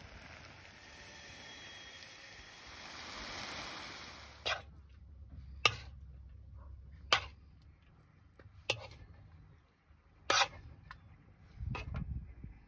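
A steady hiss for about four seconds, then six sharp clicks and scrapes about every one and a half seconds: a metal spoon knocking and scraping on a wide steel pan as the stuffing is scooped into a hollowed bell pepper.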